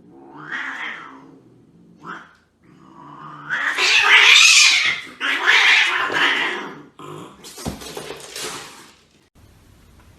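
A cat yowling in a run of long, loud drawn-out cries, the loudest about four to five seconds in.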